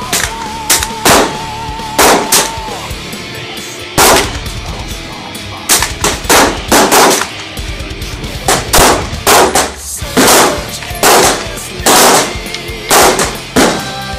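Repeated gunshots, first from a rifle and then from a semi-automatic pistol, some fired singly and some in quick strings of two or three. Heavy rock music with held, wavering guitar notes plays under the shots throughout.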